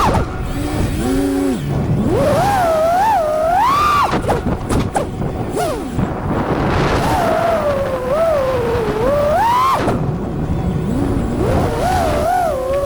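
Brushless motors and propellers of an FPV freestyle quadcopter (Xing 2 2207 1850kv motors) whining, the pitch constantly rising and falling with the throttle over a rush of air. The whine drops low about a second in and again near the end as the throttle is chopped, then climbs back.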